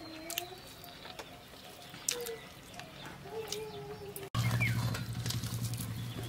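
Outdoor ambience with short, low, wavering animal calls repeating every second or so and scattered sharp clicks. About four seconds in, a steady low hum starts suddenly and continues.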